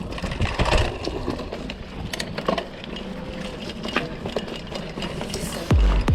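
Mountain bike ridden over a dirt trail: tyres crunching on the ground, with irregular clicks and rattles from the chain and frame. Near the end, electronic music with heavy bass kicks cuts in.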